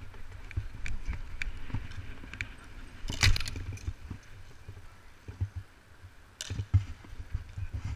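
Bicycle and polo mallet rattling and clicking while riding over tarmac, with wind rumbling on the camera microphone. Two louder knocks come a little after three seconds and around six and a half seconds.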